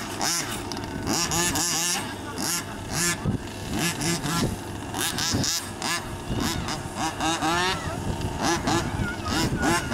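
Gasoline two-stroke engines of 1/5-scale HPI Baja RC buggies (29–30cc reed-case) revving in repeated short bursts, the pitch sweeping up and dropping back with each blip of throttle.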